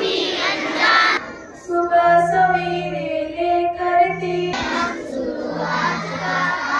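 Schoolchildren singing a prayer song together. The massed voices thin to a clearer melody led by a small group, and then the whole assembly comes back in about two-thirds of the way through.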